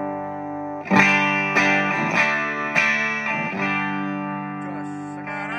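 Electric guitar played through a Blackstar ID:15 TVP combo amp with a 10-inch speaker. A loud chord is struck about a second in, and four or five more strums follow over the next few seconds, each left to ring.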